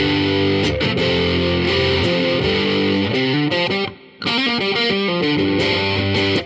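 Electric guitar played through a Renzo Sound Autumn Drive overdrive pedal: distorted chords and single notes, with a brief break about four seconds in.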